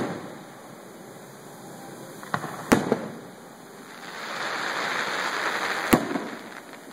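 Aerial fireworks shells bursting: a small bang about two and a half seconds in, quickly followed by a loud boom, then another loud boom about three seconds later, each with a short echo. A steady hiss swells in the seconds before the last boom.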